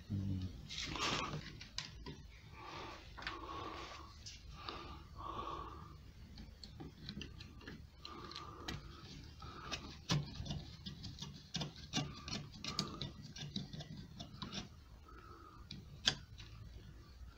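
Small screwdriver and fingers working screws and plastic clips inside a VW Golf door mirror housing: light, irregular clicks and scrapes, with sharper clicks about ten and sixteen seconds in.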